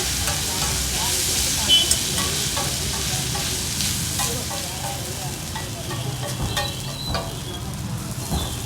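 Food frying on a hot griddle, sizzling steadily, with stirring and scraping and scattered sharp metal clinks. The sizzle grows a little quieter about halfway through.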